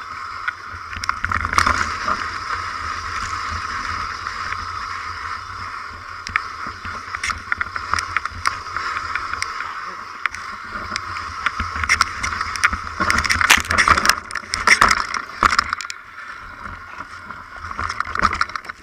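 Mountain bike running down a rough, rocky dirt trail: a steady buzz from the bike as it coasts, with rattles and knocks as it crosses bumps. The clatter is loudest and busiest about two-thirds of the way through.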